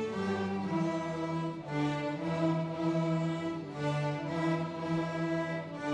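A beginner string orchestra of sixth-grade students plays a piece together on violins, cellos and double basses. The bowed notes are held, changing about every half second to a second over a steady low line.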